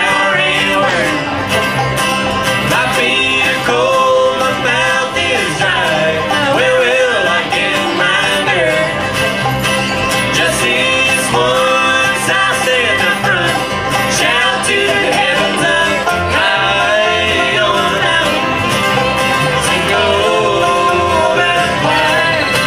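Live acoustic bluegrass band playing: banjo, upright bass, acoustic guitar and resonator guitar, with a woman singing lead.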